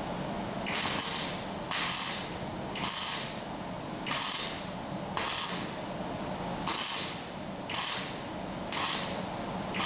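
Wire-feed arc welder laying a run of short stitch welds on a steel angle corner: about nine half-second bursts of crackling arc hiss, roughly one a second, each triggered on and off. These are quick touch-up tacks, kept short so the part stays orange hot and the slag can remelt.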